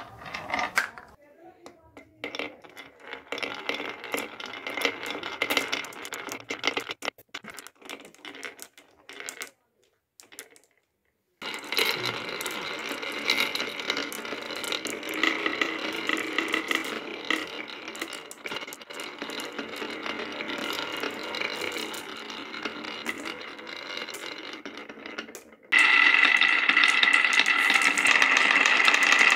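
Glass marbles rolling down grooved wooden tracks: a continuous rolling rumble dotted with clicks as they knock together and against the track. It breaks off for a moment of near silence about ten seconds in, and turns suddenly louder a few seconds before the end.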